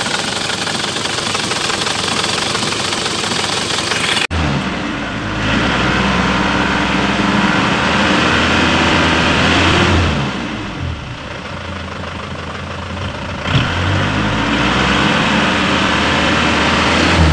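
Isuzu Panther's 2.5-litre four-cylinder diesel engine running, first idling with the bonnet open, then at the tailpipe, revved up twice for several seconds each and dropping back to idle. It is a worn engine that the owner says smokes and has blow-by.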